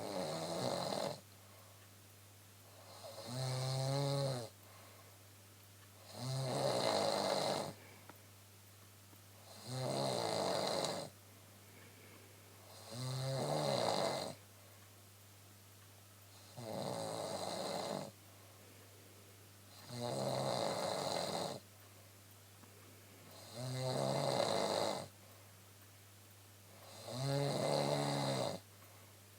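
A woman snoring in steady rhythm, nine snores about three and a half seconds apart. Each snore lasts about a second and a half, with a quiet pause between.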